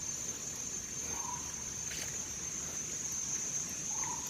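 Steady high-pitched insect drone from the forest, with two short faint animal calls, one about a second in and one near the end.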